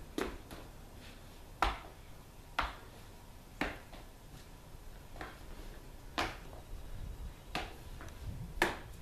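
Two short fighting sticks swung through a double-stick kenpo form, making a sharp, short stick sound about once a second, eight strong ones in all.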